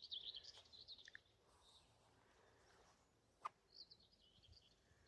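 Faint songbird twittering, with one short plop in the water about three and a half seconds in.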